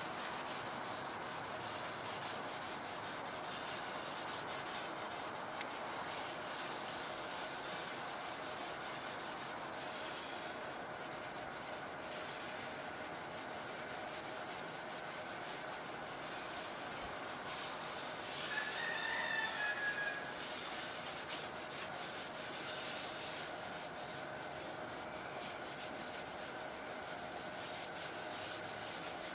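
Acrylic headlight lens being scrubbed by hand with baking soda and apple cider vinegar: a steady rubbing hiss that goes on without a break.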